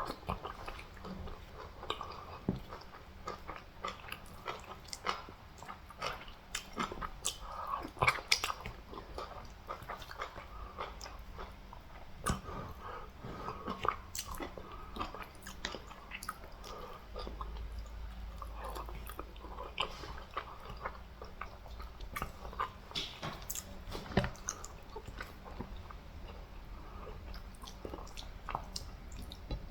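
Close-up eating sounds: a person chewing and biting food, with many irregular wet mouth clicks and smacks.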